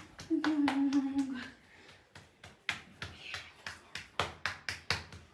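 A woman's drawn-out moan, then a run of sharp slaps and knocks from hands and bodies against the sofa, coming faster and louder near the end.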